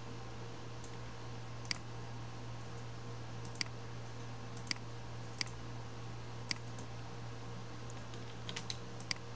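Sharp single clicks of a computer mouse and keyboard, spaced one to two seconds apart, with a quick run of three near the end. A steady low hum runs underneath.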